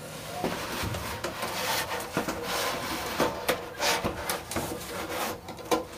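A wooden board scraping and knocking against the top edges of a wooden box as it is shifted into place over the opening: irregular rubs with sharp wooden knocks throughout.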